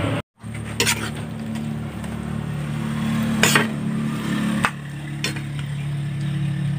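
A spatula scraping and knocking against a pan of stir-fried pinakbet vegetables, three sharp strokes a couple of seconds apart, over a steady low hum.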